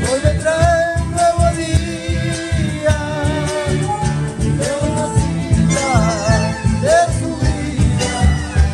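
An amplified Argentine folk band playing during a sound check: a singer's wavering melody over guitars and a steady beat on bombo legüero drums, heard through the stage speakers.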